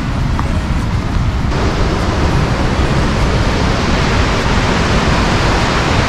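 Low rumble of a car driving, then, about a second and a half in, a sudden switch to the steady rushing of a waterfall.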